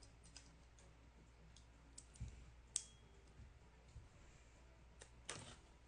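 Faint, scattered clicks and light taps of cardboard sports-card boxes being moved and picked up, with one sharper click near the middle and a brief rustle near the end.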